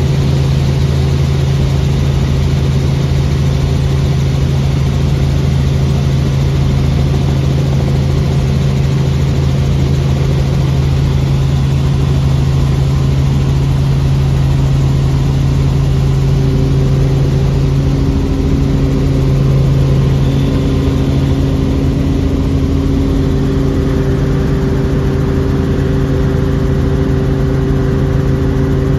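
Helicopter in flight, heard from inside the cabin: the engine and rotor make a loud, steady drone with a deep hum.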